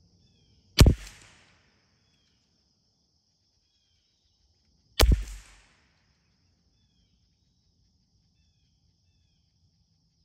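.22 LR rifle fired twice, about four seconds apart: each shot a sharp crack with a short echoing tail. A steady high insect drone runs underneath.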